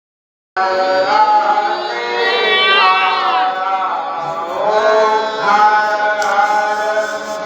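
Several voices chanting together in long held notes that bend in pitch, over a steady low tone; it starts suddenly about half a second in.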